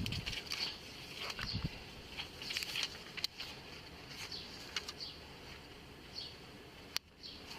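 Faint, scattered bird chirps with a few soft clicks.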